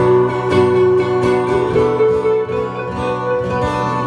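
Solo hollow-body electric guitar played through an amplifier: picked notes and chords ringing on, without singing.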